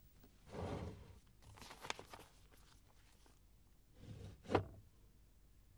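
Faint rustling and handling of paper documents, with a few soft taps; the loudest is a brief rustle about four and a half seconds in.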